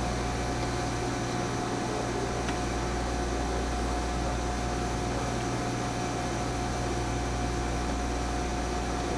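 Mori Seiki NH4000DCG horizontal machining center running under power: a steady low hum and hiss with a constant whine above it.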